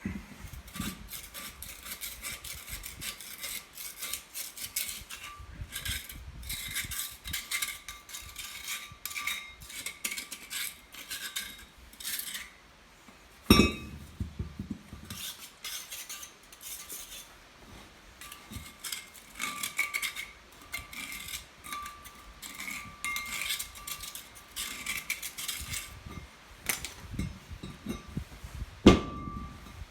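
Hand work on heavy steel parts: tools and metal pieces clinking and rattling in long runs of quick clicks, with two loud metal clunks, one about halfway through and one near the end.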